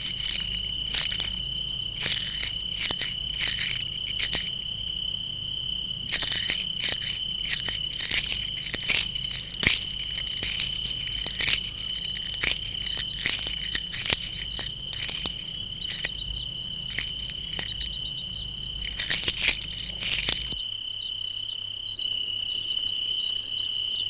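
A Central Asian tortoise biting and chewing plant shoots: irregular crisp crunches in clusters, over a steady high insect trill. The crunching stops a few seconds before the end while the trill carries on.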